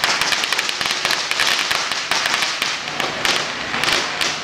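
Strings of firecrackers going off in a rapid, continuous crackle of sharp bangs, many a second without a break.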